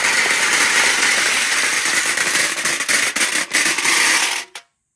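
Marbles rolling and clattering down a handmade marble-run track, a dense continuous rattle full of sharp clicks that cuts off suddenly about four and a half seconds in.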